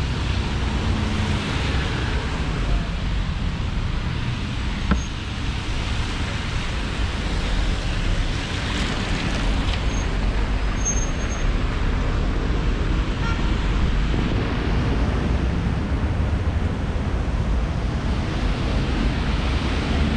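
City street traffic on a rainy day: a steady low rumble of vehicles, with tyre hiss on the wet road swelling as cars pass, about two seconds in and again near the middle. A single sharp click about five seconds in.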